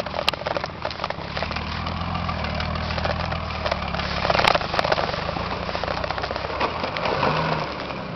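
Nissan Patrol Y60's 4.2-litre diesel engine running at low revs as the truck crawls on a steep grassy slope, its pitch shifting a little about halfway through and again near the end. A rough crackle lies over it, with a few sharp clicks.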